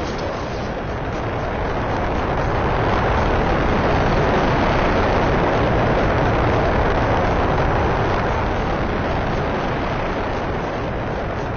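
Rocket engine roar, a steady rushing rumble that swells to its loudest in the middle and eases off toward the end.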